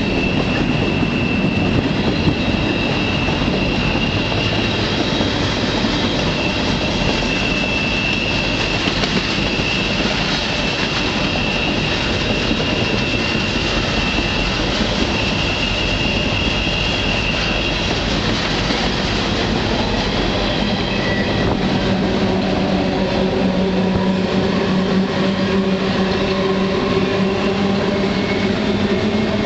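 Freight train rolling along, heard from aboard a car: a loud, steady rolling and rattling noise, with a thin, high wheel squeal that holds for the first half or so. About two-thirds of the way through a low, steady hum comes in under the noise.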